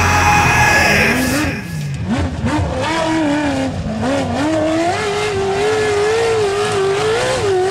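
Background rock music cuts off about a second in, giving way to an off-road race vehicle's engine revving up and down through the gears, climbing and holding high near the end.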